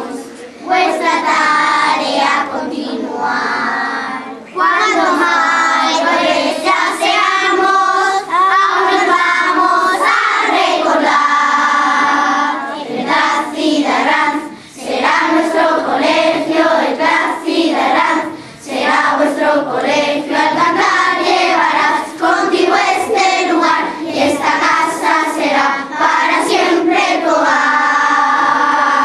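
A group of schoolchildren singing together as a children's choir, holding long notes, with brief pauses between lines.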